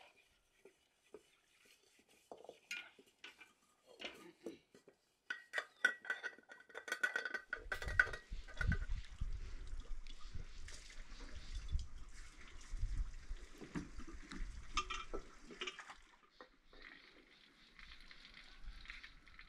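Dishes and utensils clinking and scraping during a meal, in scattered light knocks, with a low rumble through the middle few seconds.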